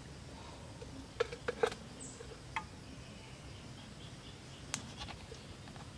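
A few sharp clicks and light knocks over a low, steady background: a quick cluster of three or four about a second in, another shortly after, and a single one near the end.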